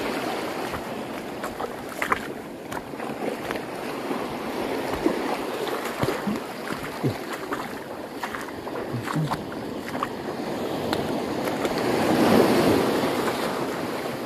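Small waves washing over a shallow coral reef flat, with scattered short splashes and clicks; the surf swells louder near the end.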